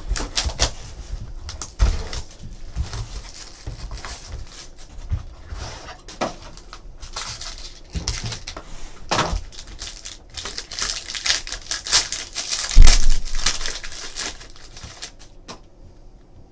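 A sealed trading-card box being unwrapped and opened by hand: plastic wrap and cardboard crinkling and rustling, with scattered clicks as the packaging and cards are handled. A loud thump comes about 13 seconds in.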